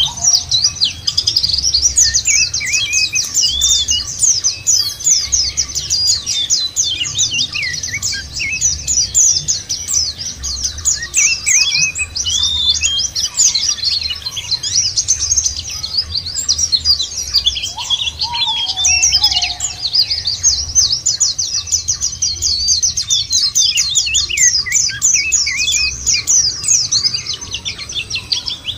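Many white-eyes (pleci) singing and chattering together in dense, rapid high-pitched twittering trills. A lower slurred call cuts through twice, once at the very start and once about two-thirds of the way in.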